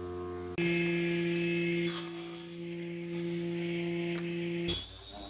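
Electric motor hum of a woodworking power tool. It changes tone and gets louder just over half a second in, then cuts off suddenly near the end.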